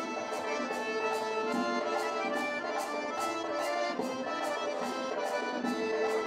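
Accordion playing a lively Circassian folk dance tune over a steady sharp clicking beat, about two to three beats a second.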